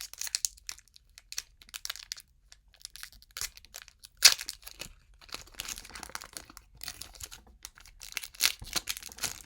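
Foil wrapper of a Pokémon TCG booster pack crinkling and tearing as it is ripped open by hand, in irregular rustles with the loudest crackle about four seconds in.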